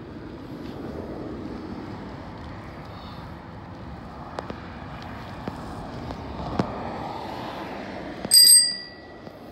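Steady rush of tyre and wind noise from an e-bike rolling along a paved path, with a few light clicks. Near the end a bicycle bell is struck once and rings on for about a second.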